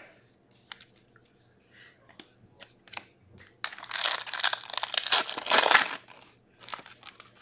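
A foil-lined hockey card pack wrapper being torn open and crinkling for about two seconds, the loudest part, starting about three and a half seconds in. Before it come a few light clicks and taps of cards being handled and set down.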